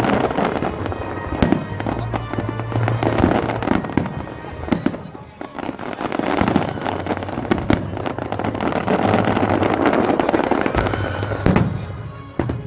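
Aerial fireworks display: shells bursting one after another in a string of sharp bangs, some close together.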